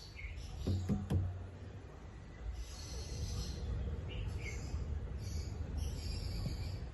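African lovebirds chattering in short raspy bursts with a few brief chirps, and a couple of sharp knocks about a second in.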